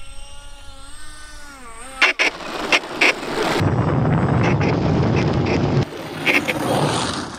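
Small electric motors of an RC Boeing 737 model airplane whining at a steady, slightly wavering pitch that drops as they throttle back. A few sharp knocks follow as the plane touches down, then a rough scraping rumble as it slides and rolls along the ground.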